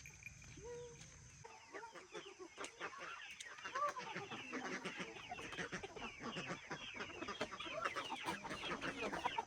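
A flock of chickens calling, many short overlapping clucks and cheeps that build up about a second and a half in and grow denser toward the end.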